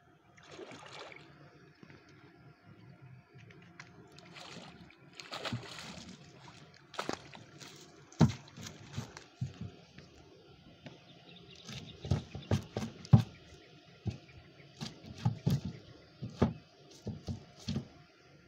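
Water sloshing, splashing and dripping as a gill net is hauled by hand out of a lake into a wooden boat. From about seven seconds in, a run of sharp knocks and thumps on the boat as a large fish is lifted aboard in a hoop landing net.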